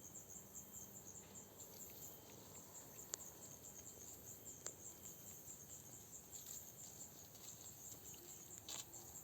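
Crickets chirping faintly in a fast, even, high pulse, with two sharp clicks about a third and halfway through and a short rustle near the end.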